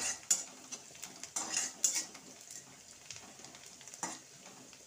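A spatula scraping and clinking against a metal kadhai while stirring chopped onion and garlic in oil, in several separate strokes.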